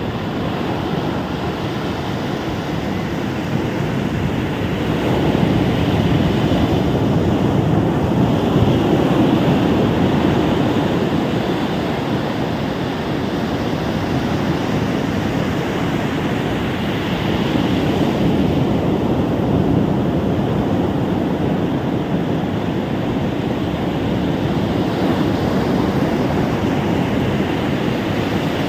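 Ocean waves breaking on a beach: a steady wash of surf that swells louder every several seconds as waves come in, with some wind on the microphone.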